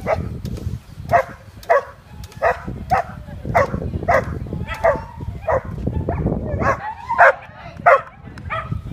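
A dog barking over and over, a little under two barks a second, with a steady low rumble underneath.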